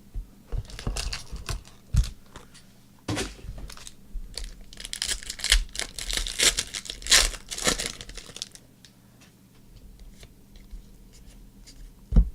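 A Panini Court Kings basketball card pack wrapper being torn open and crinkled, in several rustling, tearing bursts over the first eight seconds or so. A single knock comes near the end.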